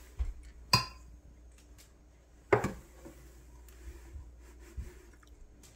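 Kitchen handling sounds while sugar is measured from a plastic canister into a steel mixing bowl: two sharp knocks, the first with a brief ring, then a few small taps and faint scraping.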